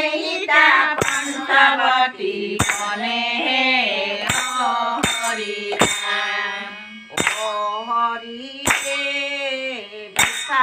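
Women singing naam together, an Assamese devotional group chant, with a sharp metallic clang keeping time roughly every second or so.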